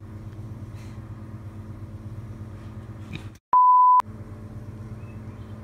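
A steady low hum, interrupted about three and a half seconds in by a half-second beep, a single pure tone, with all other sound cut out around it as if dropped into the audio. The beep is the loudest sound.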